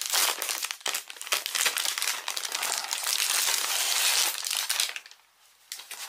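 Clear plastic bag crinkling as it is pulled off a tablet keyboard cover: dense crackling for about five seconds, dying down near the end.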